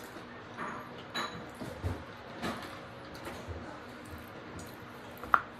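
Faint, scattered chewing and small mouth sounds in a quiet room, with one short sharp click near the end that is the loudest sound.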